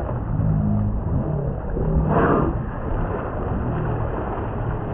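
Boat engine running steadily under wind and water noise, with a brief louder rush of noise about two seconds in.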